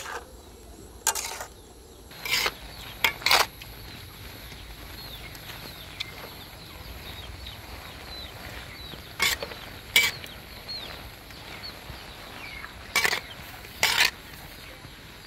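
Metal spoon stirring small round earthstar mushrooms in a steel wok: short clinks and scrapes against the pan every second or few, some in pairs, over a low steady background.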